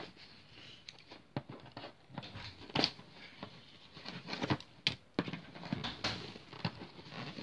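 Plastic packaging being handled: scattered crinkles and clicks at irregular intervals.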